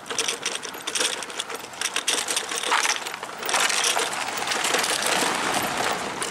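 Footsteps crunching on loose gravel and broken paving, an irregular gritty crackle that comes in uneven surges, with a faint steady hum underneath.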